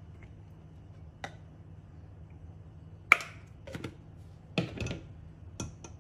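Ghee melting and heating in a nonstick pan, giving off scattered sharp pops and clicks, the loudest about three seconds in, over a low steady hum.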